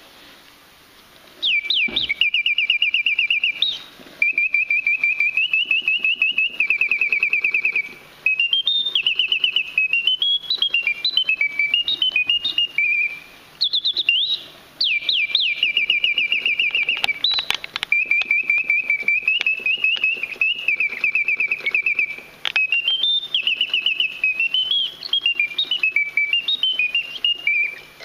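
Bontems singing-bird automaton movement whistling its bird song through its bellows-driven piston whistle: rapid trills and warbling phrases with quick rising and falling glides, broken by short pauses between phrases. The song starts about a second and a half in.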